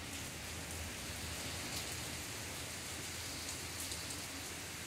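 Downpour of rain falling steadily, heard from under a porch awning: a dense, even hiss with scattered drop hits.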